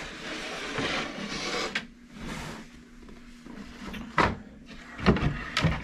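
Items being shifted about on the floor of an under-sink cabinet and its thin floor panel being lifted: rustling and scraping, then a sharp knock about four seconds in and a few more knocks near the end.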